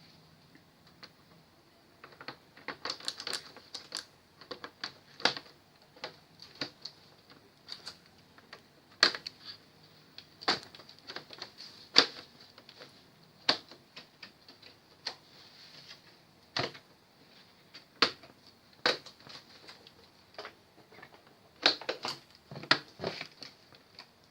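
Irregular sharp clicks and taps of small hard parts being handled, starting about two seconds in, a few loud ones standing out among lighter ones.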